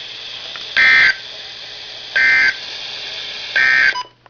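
Three short, loud electronic data squawks about a second and a half apart, over a steady radio hiss and low hum: the SAME end-of-message code bursts that close a NOAA Weather Radio Emergency Alert System warning, heard through a Midland WR-100 weather radio's speaker.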